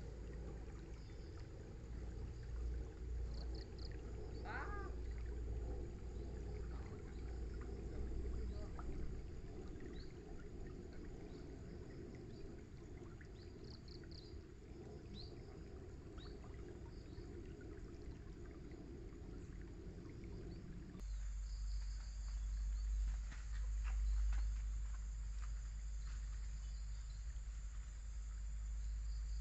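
Riverside ambience: wind buffeting the microphone over a low rush of flowing water, with scattered short chirps. About two-thirds of the way through the sound changes suddenly to a steady high-pitched insect drone, like crickets, over the wind rumble.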